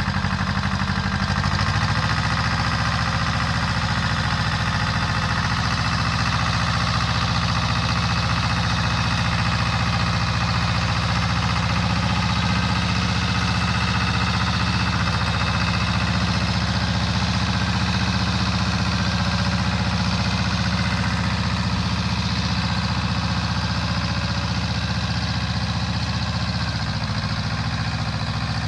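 Pasquali 425 compact tractor's 30 hp engine running steadily under load as it pulls a two-furrow plough through garden soil.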